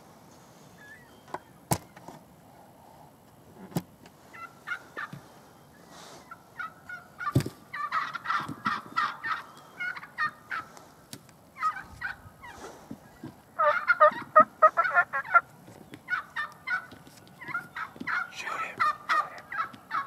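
Wild turkey toms gobbling again and again in bursts of rapid notes, loudest about halfway through and near the end, with a couple of sharp clicks in the first few seconds.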